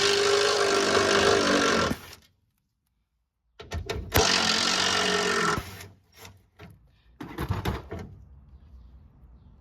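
Power driver running in two steady bursts of about two seconds each, backing out the 10 mm bolts that hold the trunk latch actuator, followed by a few short clicks and a brief rattle.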